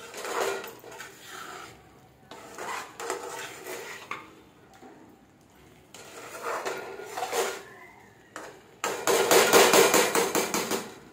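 A spoon stirring and scraping masala and onion paste around a karahi, in four bouts. The last bout, near the end, is the loudest.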